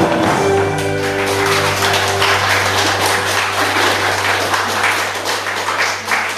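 Line-dance music holding a long low chord, with clapping over it.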